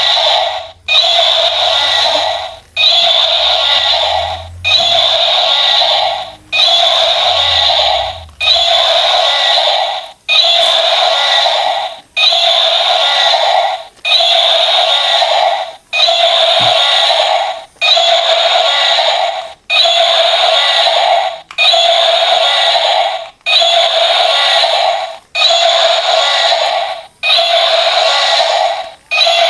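A harsh electronic buzzing tone that sounds in pulses about every two seconds, each pulse starting sharply, fading slightly and then cutting off, like a toy's built-in sound effect.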